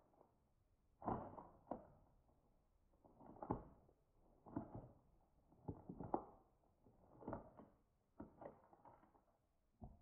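Work boots stepping on and grinding the shattered pieces of a plastic toy, with short faint crunches and scrapes about once a second, the strongest about a second in and around the middle.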